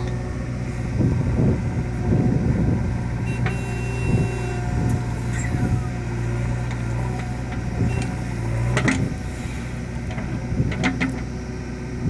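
JCB 3DX backhoe loader's diesel engine running steadily under hydraulic load as the backhoe digs soil and swings a bucketful over to a tipper truck. Metal clunks come from the boom and bucket, the loudest about nine seconds in, after which the engine note drops. A brief thin hydraulic whine is heard early in the swing.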